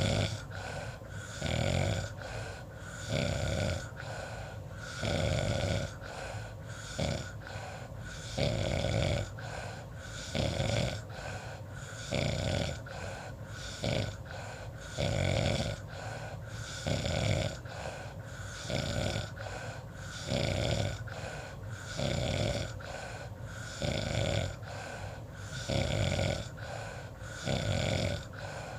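Sleeper snoring in a steady rhythm, a snore about every one and a half to two seconds, over a faint steady background tone.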